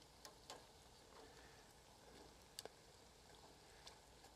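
Near silence with a few faint clicks of metal tongs against a deep fryer's wire basket, the sharpest about two and a half seconds in.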